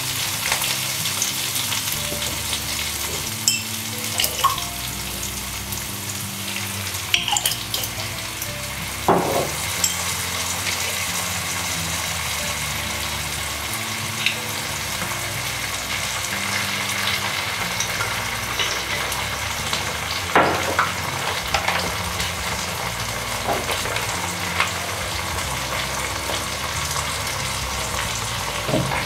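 Chopped onions and capsicum sizzling steadily as they fry in oil in a pan, with a few sharp knocks of a utensil against the pan. Soft background music plays underneath.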